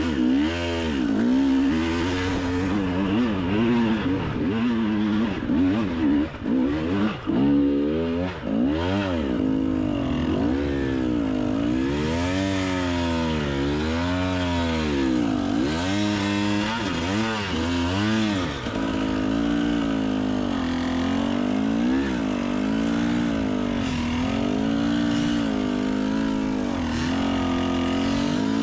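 Enduro motorcycle engine revving up and down over and over as the rider works the throttle over rough, rocky ground, in quick short bursts with brief drops at first, then running more evenly with smaller swings toward the end.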